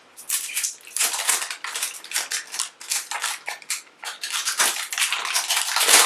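Crinkly plastic wrapping being torn and peeled off an LOL Surprise toy ball: a dense run of irregular crackles that grows busier and louder toward the end.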